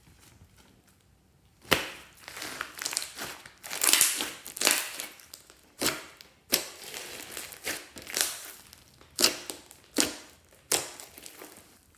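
Glossy slime being squeezed and pressed by hand: repeated sticky squelches and pops, each starting sharply and fading within a fraction of a second, beginning a little under two seconds in.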